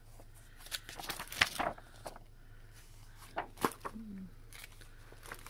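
Paper instruction manual being opened and its pages handled, with a string of short rustles and crackles.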